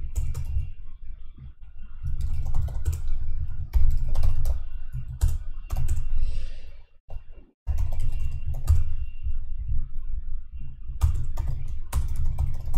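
Typing on a computer keyboard: runs of quick keystrokes with dull thuds, broken by a short pause about seven seconds in.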